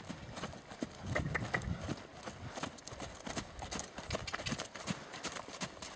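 Hoofbeats of a ridden horse moving briskly over a sand arena: a continuous run of soft thuds.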